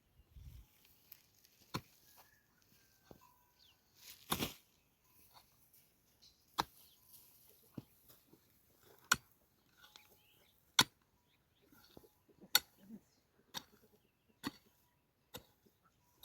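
A series of sharp knocks, about one every second or two at irregular intervals, the strongest about four seconds in.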